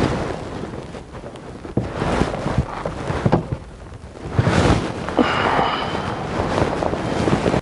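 Rumbling rustle of clothing and wind on a body-worn wireless microphone while gear is handled in a kayak, with scattered knocks and bumps. A brief high squeak-like tone comes about five seconds in.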